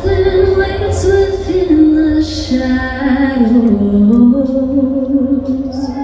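Show choir performance: singing over a band with a heavy, steady bass. The sung line is held on long notes that step down in pitch.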